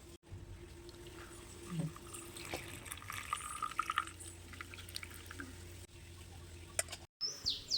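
Liquid being poured and dripping, with scattered small clicks and knocks.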